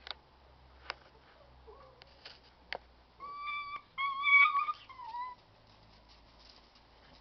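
Puppy whining: two high whimpers in the middle, the first steady and the second louder and wavering, ending in a short falling note. A few faint clicks come before them.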